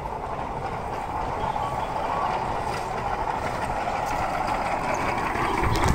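Steel wheels of a small human-powered rail cart rolling along old railway track, a steady rolling hum that grows louder as the cart approaches, with a couple of low knocks near the end.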